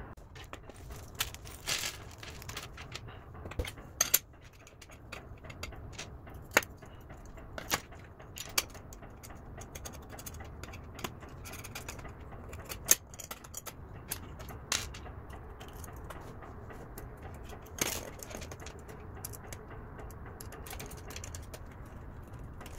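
Scattered sharp clicks and clinks of small metal parts (nuts, screws and a brass pogo pin) being handled and fitted onto an aluminium battery-holder plate, a few of them much louder than the rest.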